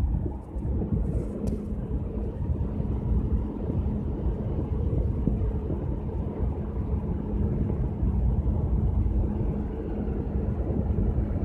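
Cruise ship's steady machinery hum heard from the open upper deck, a constant low drone with wind buffeting the microphone.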